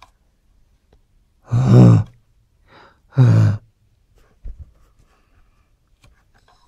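A man's two drawn-out wordless vocal sounds, like sighs or a long 'ohh', each falling in pitch, about a second and a half apart, followed by a few faint handling clicks.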